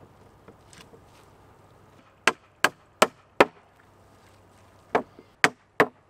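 Claw hammer striking, nailing wooden planks onto the side of a timber frame: a run of four sharp blows about 0.4 s apart some two seconds in, then three more near the end.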